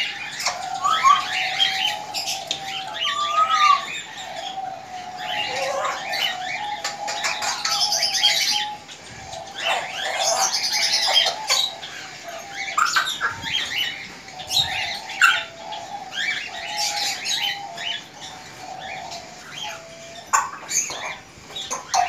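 A shed full of caged budgerigars chattering, a continuous mix of many short chirps and calls with a wavering warble running underneath.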